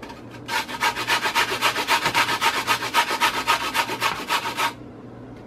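A raw carrot being grated by hand on a stainless-steel box grater, in quick, regular strokes that start about half a second in and stop shortly before the end.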